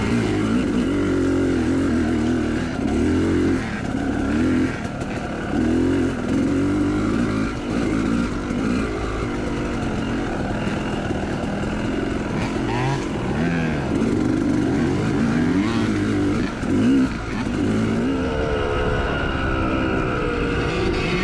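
Big-bore Yamaha YZ two-stroke dirt bike engine under race load, revving up and falling back again and again as the rider works the throttle through the gears.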